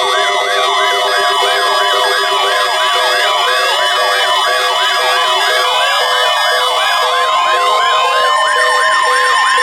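Electronic alert tones layered together: several steady high tones under a siren-like warble that sweeps up and down about three times a second, with slower rising glides joining in about halfway through.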